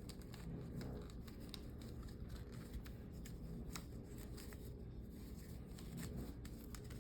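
Hands handling a plastic action figure and its cloth robe: faint scattered clicks and rustles as the robe is worked on over the figure's shoulders, over a steady low hum.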